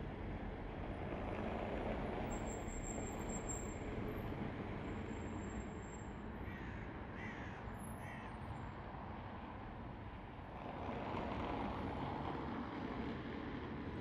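Steady hum of distant city traffic, with three short crow caws in the middle. The traffic noise rises near the end as a tram approaches.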